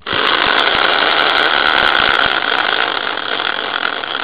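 Homemade prize wheel built from a caster wheel, whirring on its axle as it spins after a hard push. The whir starts suddenly, with scattered small clicks over the first couple of seconds, and slowly dies down as the wheel loses speed.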